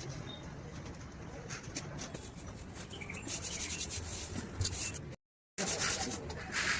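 Rubbing and scratching from hand work, a rapid run of scratchy strokes that grows busier after about three seconds, broken by a short cut to silence just after five seconds.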